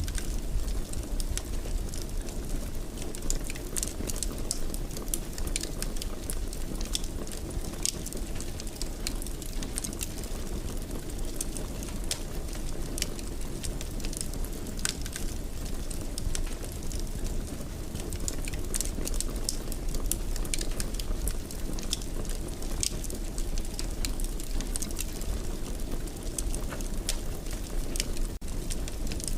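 Fire burning in a fireplace, crackling with many small irregular pops over a steady low rumble.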